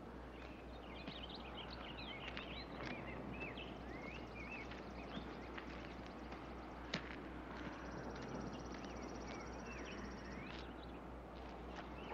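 Faint rural outdoor ambience: small birds chirping over a steady hiss. There is a single click about seven seconds in, then a high, rapid trill lasting about three seconds.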